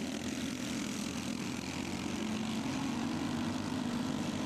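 Go-kart engines buzzing steadily as a pack of karts races by, a continuous engine drone with no break.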